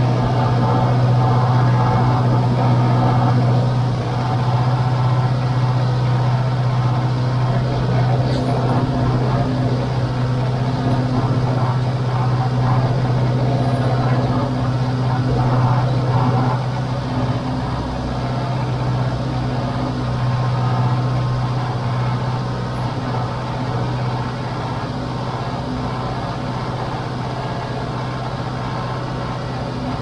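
John Deere 410 backhoe loader's diesel engine running steadily under way, heard from the operator's seat as a continuous low drone. It drops slightly in loudness a little past halfway.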